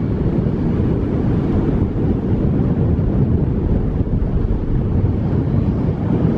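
Steady low rumble of wind buffeting the microphone, mixed with road noise from a car driving.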